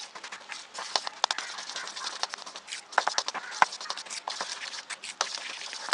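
Thick pancake batter being stirred in a stainless steel bowl as milk is worked into the flour, with quick irregular wet clicks and scrapes.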